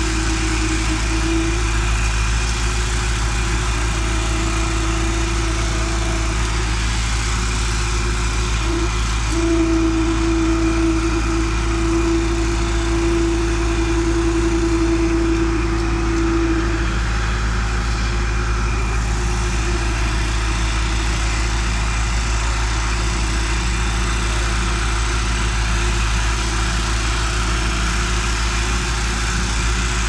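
Engine of a trailer-mounted concrete mixer pump running steadily, with a steady tone that grows stronger for several seconds midway.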